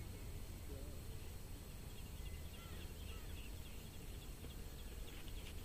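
Faint open-air background: a steady low rumble with a few faint high chirps here and there.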